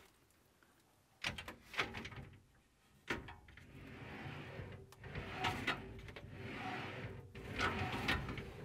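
Glass sliding shower door being hung on its aluminium top rail: a few sharp clicks and knocks as the runner wheels catch on the rail, then sliding and scraping with more small knocks.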